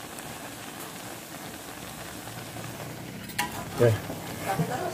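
Green beans and tofu sizzling steadily in a wok, with a spatula scraping and stirring through them from about three and a half seconds in.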